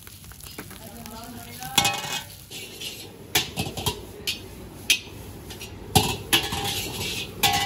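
Metal ladle scraping and striking a large wok as fried rice is stirred and tossed over a high flame. About seven sharp clangs at uneven intervals, some of them ringing briefly.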